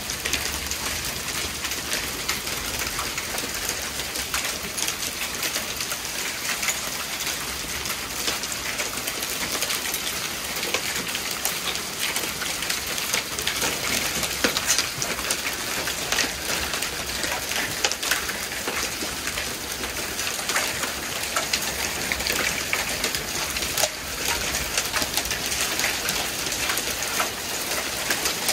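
Heavy storm rain mixed with small hail pelting a wooden deck: a steady hiss packed with sharp ticks.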